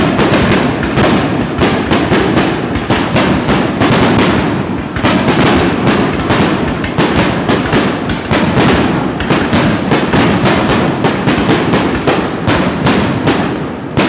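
Fireworks display: a dense, continuous barrage of aerial shell bursts and crackling, several sharp bangs a second, starting suddenly at full strength.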